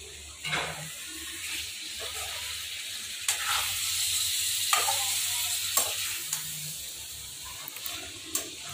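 Chicken pieces sizzling as they fry in masala paste in a steel kadhai, the sizzle swelling in the middle, while a metal spoon stirs them, scraping and giving a few sharp clinks against the pan.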